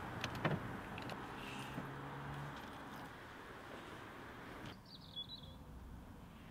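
Street ambience: a steady wash of distant traffic with a low hum and a couple of faint clicks. About three quarters of the way in, the noise drops away and a small bird chirps briefly.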